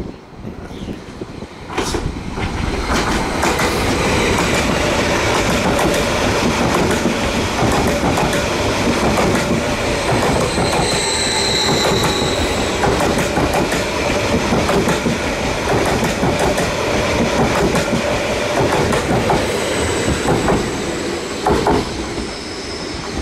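A train running past, its wheels clacking over rail joints, with a high squeal about eleven seconds in and a fainter one near the end.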